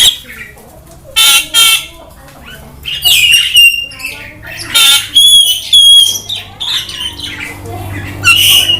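Javan myna giving a string of loud, harsh squawks broken up by short whistled notes, in separate bursts a second or so apart.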